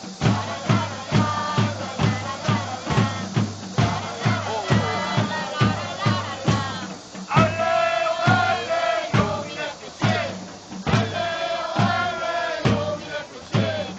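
Football supporters singing a chant together over a steady drum beat, about two to three beats a second.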